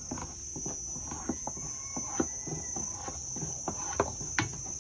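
Thick batter being stirred with a spatula in a stainless-steel bowl: irregular soft scrapes and taps, mixing until the palm sugar dissolves. Insects chirr steadily and high-pitched underneath.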